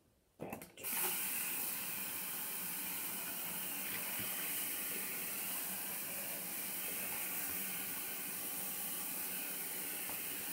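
Bathroom sink faucet running steadily into the basin over a hand rinsing in it; the water comes on about a second in, just after a brief short sound, and shuts off at the very end.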